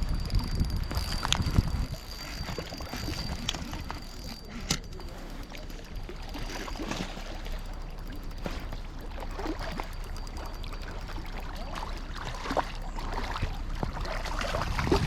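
River water running and splashing, with a few sharp clicks and a faint steady high whine that stops about two-thirds of the way through.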